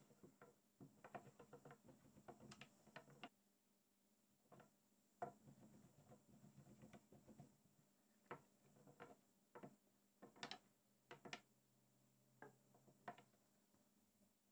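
Faint, irregular taps and clicks of a long thin wooden rolling pin against a wooden pastry board as thin baklava dough sheets are rolled out.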